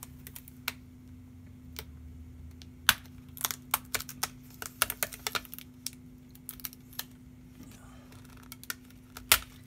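Sharp plastic clicks and snaps as the display bezel of an HP Pavilion 15-ec1008ca laptop is pried off with a plastic pry tool, its clips popping loose one after another. The clicks come irregularly, with a loud one about three seconds in, a quick run of them over the next couple of seconds, and another loud one near the end, over a faint steady hum.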